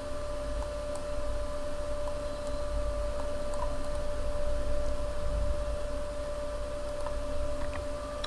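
Steady electrical hum and low room noise, with a few faint mouse clicks scattered through it.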